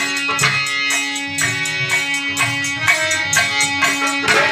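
Instrumental folk music: a steady drum beat under sustained held notes from a melody instrument.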